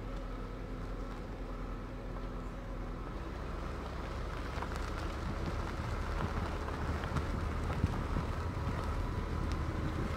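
Vehicle engine running at a steady idle, then from about three seconds in the vehicle moves off and a low rumble of tyres on a dirt gravel road builds and grows louder.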